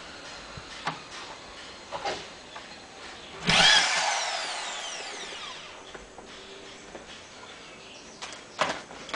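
A corded power drill runs in one short, loud burst about three and a half seconds in, driving a fastener into vinyl siding, then its whine falls away as the motor spins down. A few sharp knocks come before it and near the end.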